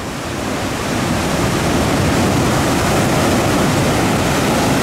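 Ocean surf breaking on a rocky shore: a big wave's rush swells over about the first second, then holds as a loud, steady wash of water.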